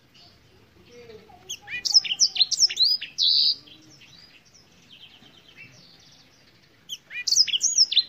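Black-throated canary singing: a burst of quick, sweeping whistled notes about a second and a half in, softer twittering trills in the middle, and another loud burst of song near the end.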